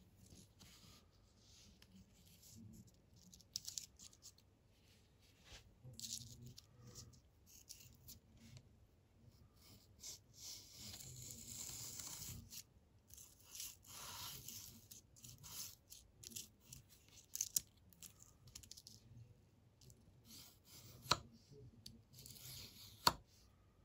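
Faint rasping and scraping of a leather edge beveler's steel tip being rubbed against abrasive paper laid in a grooved sharpening block, in short irregular strokes with one longer stroke midway. Two sharp clicks come near the end.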